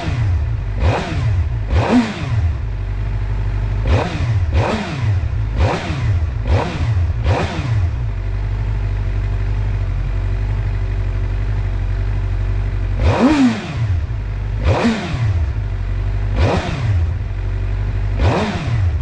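Suzuki GSX-R 750's inline-four engine, fitted with a new Sprint P08 air filter, revved in about a dozen quick throttle blips, each rising in pitch and dropping back to idle. The blips come in a quick run, give way to about five seconds of steady idle, then start again more spaced out.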